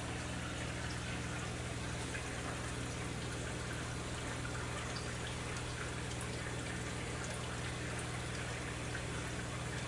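Aquarium water trickling and splashing steadily from the tanks' filter circulation, with faint drips, over a steady low hum.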